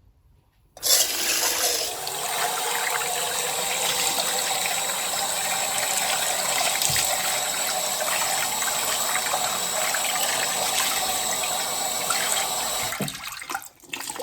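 Water pouring steadily as soaked rice is drained. It starts suddenly about a second in and stops near the end.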